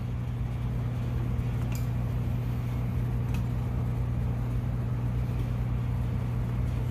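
Steady low hum of a running room air conditioner. Twice there is a faint light click as small metal carburetor linkage parts are handled.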